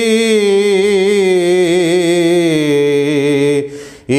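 A man singing a Saraiki naat unaccompanied, holding one long wavering note that steps down in pitch about halfway through and fades out just before the end.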